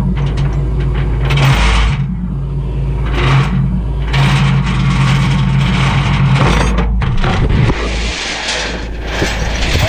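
Flatbed tow truck's engine running steadily with a low hum, with a rushing noise that comes and goes; the hum breaks up about three quarters of the way through.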